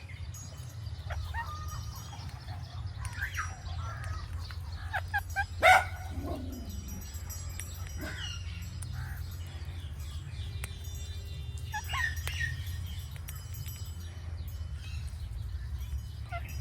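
Indian ringneck parrot making short calls and clicking sounds, with one loud, sharp squawk about six seconds in, over a steady low rumble.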